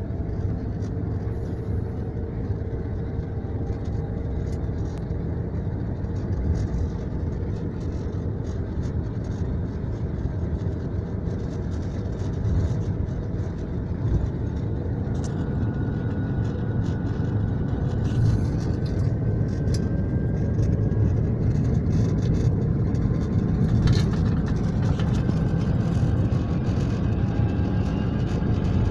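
DB class 232 'Ludmilla' diesel locomotive accelerating, heard from inside its cab: a continuous low rumble from its V16 diesel engine under load, growing gradually louder, with a faint rising whine through the middle and occasional clicks.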